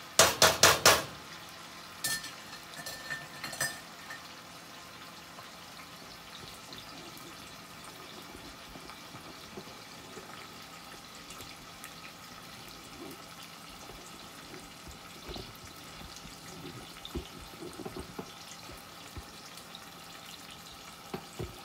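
Onions and seasoning frying in hot oil in a pan: a steady sizzle. A quick run of loud knocks opens it, followed by a few lighter clicks.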